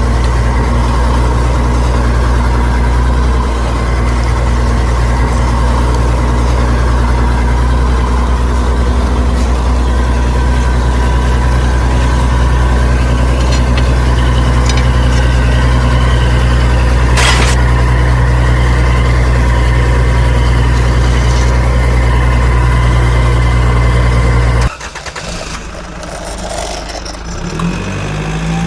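A small motor running at a constant speed with a loud, steady hum that cuts off suddenly about 25 seconds in. Quieter mixed noises follow, with a rising whine near the end.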